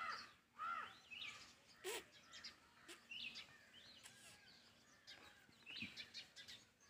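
Faint birds chirping and calling in short scattered notes, with a single sharp click about two seconds in.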